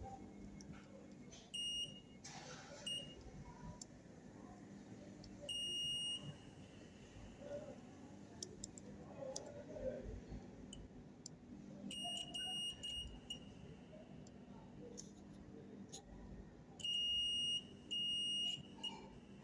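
Multimeter continuity buzzer beeping in short and half-second high-pitched beeps as probes touch points on a power supply circuit board, each beep marking a connected path between the probed points. The beeps come in irregular groups, a pair near the end the loudest.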